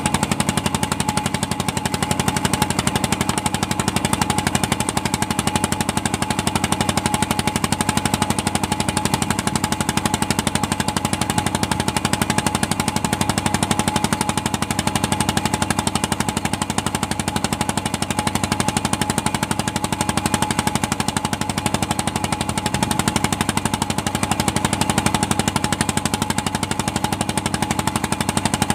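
A fishing boat's engine running steadily under way, a fast even pulse that holds unchanged throughout.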